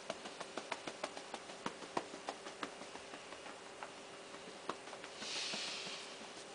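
A run of light, quick taps, several a second and uneven, thinning out after about three seconds: hands tapping a toddler's back in a percussive massage. Near the end, a soft hiss lasting about a second.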